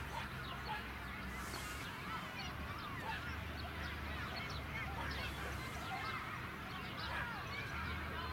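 Distant crowd of children shouting and cheering, many high voices overlapping continuously, over a low rumble of wind.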